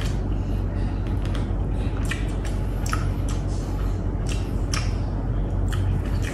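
Eating squid and rice by hand from a paper wrapping: fingers squishing through the food and rustling the paper, with chewing, as irregular small clicks and ticks over a steady low hum.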